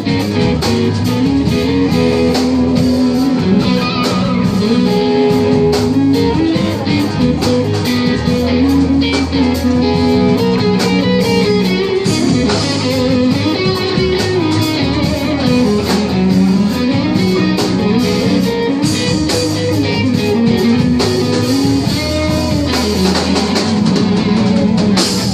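Live rock band playing an instrumental passage: electric guitars over a moving bass line and a drum kit.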